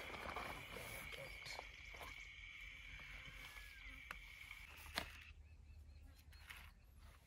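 Steady high-pitched insect drone that stops about four and a half seconds in, with a few light clicks and a sharp knock about five seconds in from plates and a pan being handled. After that a bird gives short repeated chirps, about three a second.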